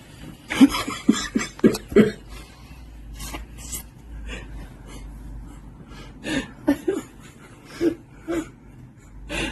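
Stifled, breathy laughter from a few people: short spurts of chuckling in two spells, one starting about half a second in and another around six seconds in.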